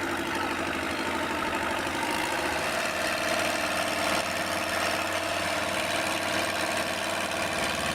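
Engine running steadily at an even speed, as on a firewood-processing machine.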